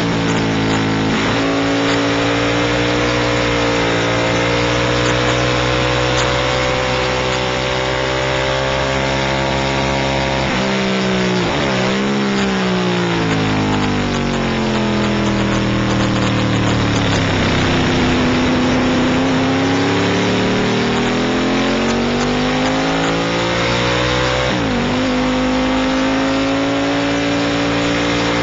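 Race motorcycle engine at high revs, heard from on board over steady wind rush. The revs hold, then drop through a quick series of downshifts with throttle blips about eleven seconds in, sweep low and climb back out, and drop with another quick downshift about twenty-five seconds in.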